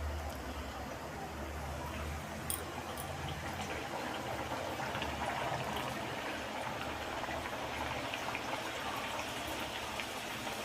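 Bhatura dough deep-frying in hot oil: a steady sizzle with fine crackling, and one sharp click about two and a half seconds in.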